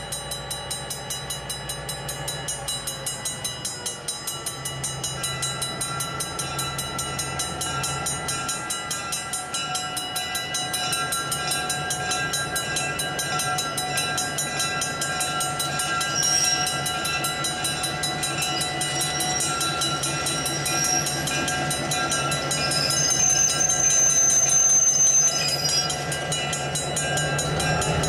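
EMD GP7 diesel locomotive with its 16-cylinder 567 engine approaching at low speed, its engine and rolling sound growing louder as it nears. A steady ringing runs beneath it, and brief high squeals come in the second half as it reaches the crossing.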